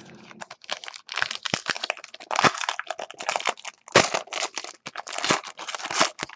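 Wrapper of a Panini Black Gold trading-card pack crinkling and tearing as it is pulled from the box and ripped open by hand: a dense, unbroken run of sharp crackles.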